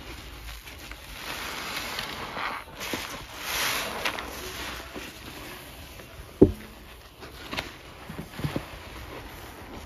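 Wet kitchen sponges loaded with foamy Ajax cleanser paste being squeezed and rubbed in rubber-gloved hands, a swishing, squelching noise that swells in the first half. A single sharp knock comes a little past halfway, then a few softer clicks.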